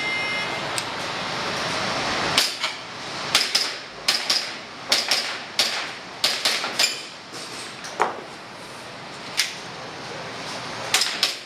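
Shot timer beeps at the start, then a string of airsoft pistol shots: about fifteen sharp cracks spaced unevenly, some in quick pairs, as a shooter runs an IPSC stage.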